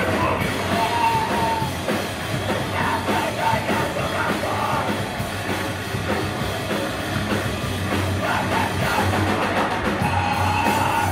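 Heavy rock band playing live: distorted guitars and drums with yelled vocals.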